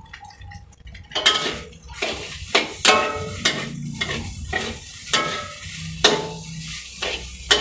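Metal ladle scraping and clanking against an aluminium wok as fried rice is stir-fried, over a steady sizzle from the pan. The strokes start about a second in and come a few times a second, some ringing briefly.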